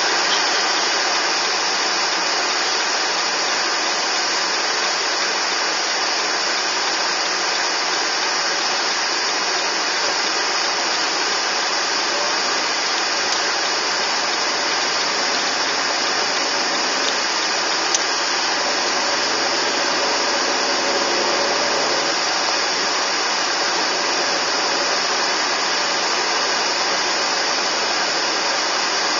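Steady hiss of car-interior noise, with the engine faintly rising in pitch partway through as the car pulls away.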